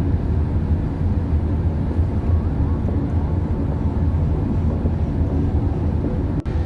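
Steady low rumble of a moving vehicle, dipping briefly near the end.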